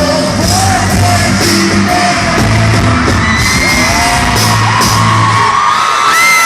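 Live pop-rock band playing, with drums and bass on a steady beat, under sung vocals and high yells from the audience. About five and a half seconds in the band drops out and high-pitched screams from the crowd carry on.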